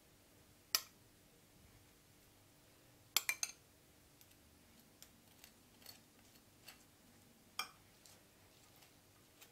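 Metal spoon clinking against dishes while pizza sauce is spooned onto fries: a sharp clink about a second in, three quick clinks near the middle, another clink near the end, and light ticks between.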